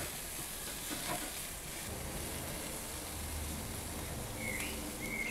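Onion bacon burgers sizzling steadily on the grill grate of a kamado grill over open flame. Two short high chirps sound near the end.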